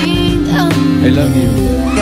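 Music: a love song playing continuously.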